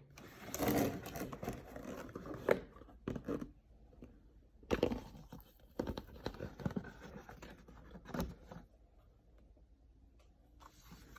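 Irregular rustling, tearing and scraping of packaging being handled, with a few sharp clicks and knocks, loudest in the first second and again near 2.5 and 5 seconds.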